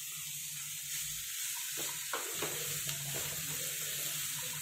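Chopped vegetables sizzling as they are stir-fried in a kadhai, with a steady hiss and a few knocks and scrapes of a wooden spatula against the pan in the middle.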